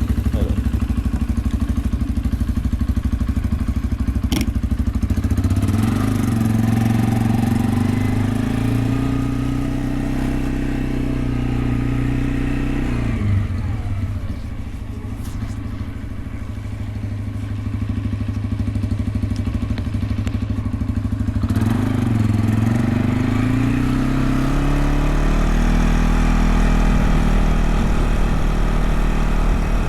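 Small farm motorbike engine running under way. It revs up about six seconds in, holds, and eases off around thirteen seconds. It runs lower for several seconds and revs up again a little past twenty seconds.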